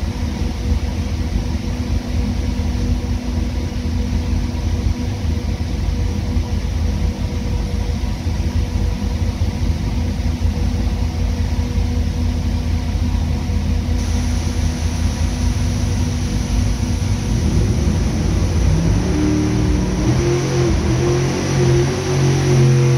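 Twin-turbocharged SMX ProMod V8 running at low revs on an engine dyno, a steady loud rumble. About four seconds before the end the revs start climbing in steps as a dyno pull begins.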